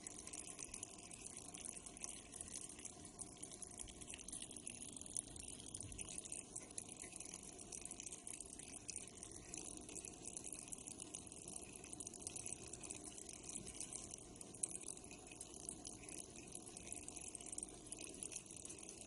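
Water flowing through a household pipe, a steady faint rushing and gurgling with no breaks.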